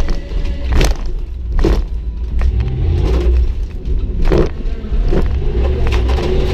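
1999 Dodge Durango's engine revving hard under throttle, heard from inside the cab, with about four sharp bangs and rattles as the truck is jolted over the bumps of a dirt course.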